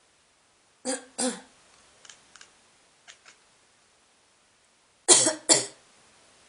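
A person coughing: two coughs about a second in, then two louder coughs near the end, with a few faint short ticks between.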